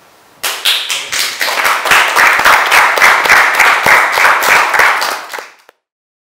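Audience applauding, a dense run of hand claps starting about half a second in, then fading quickly and cutting off near the end.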